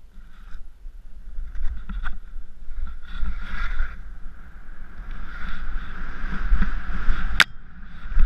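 Skis hissing through powder snow in waves as they turn downhill, over a low rumble of wind on the microphone. A single sharp click about seven seconds in.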